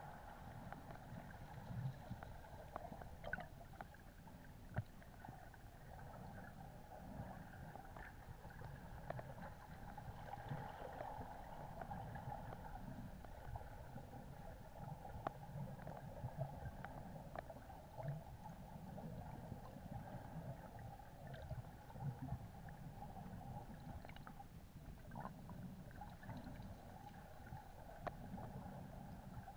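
Faint, muffled underwater ambience picked up by a camera filming below the surface: a low, uneven rumble of moving water, a steady hum, and scattered faint clicks.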